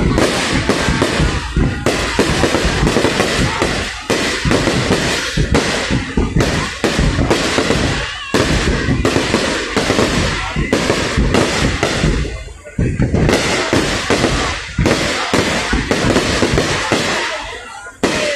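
Aerial fireworks going off in a dense barrage: rapid bangs and crackles, one after another almost without pause, with a few brief lulls.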